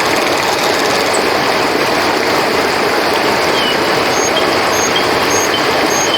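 Steady rushing of river water flowing. From about four seconds in, a short high chirp repeats roughly twice a second over the water.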